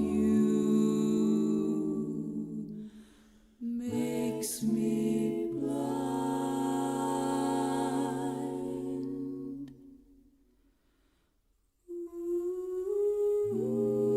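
Slow background music with a wordless, hummed-sounding melody over held notes, some with a slight vibrato. It breaks off briefly a few seconds in, fades to near silence about ten seconds in, and starts again about two seconds later.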